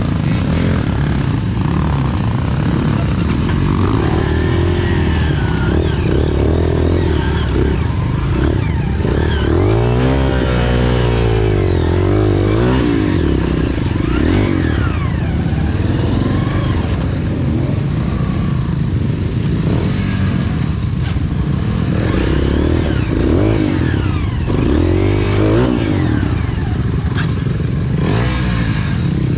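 Trail motorcycle engine running continuously, its revs rising and falling again and again as it is ridden.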